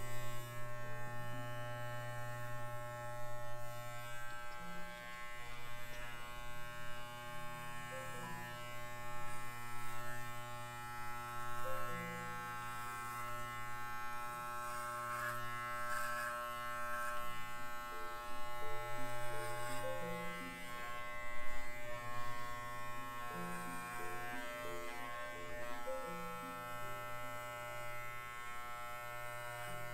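Corded electric dog grooming clippers running with a steady buzz while clipping a miniature schnauzer's head.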